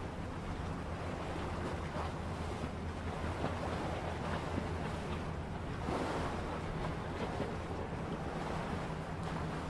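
Sea waves washing: a rushing noise that swells and ebbs every few seconds over a low steady hum.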